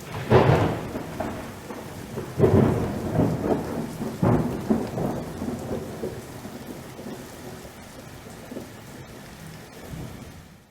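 Rain falling steadily through thunder: three loud cracks about two seconds apart in the first half, each trailing off into rumble, then the thunder dies down beneath the rain.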